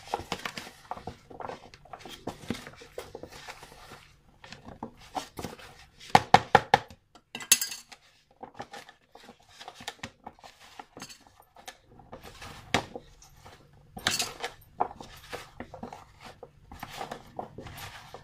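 Raw potato sticks being tossed and mixed by hand with dry flour and spices in a plastic container: irregular rustling, knocking and clattering against the container, louder about six to eight seconds in and again about fourteen seconds in.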